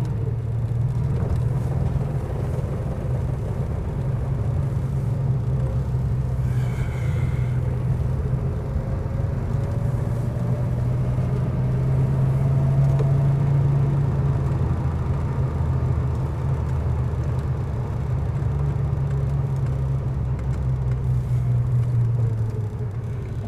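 Cabin sound of a 1935 Rolls-Royce 20/25's straight-six engine and drivetrain while driving: a steady low rumble. A faint whine rises in pitch from about eight seconds in, then fades.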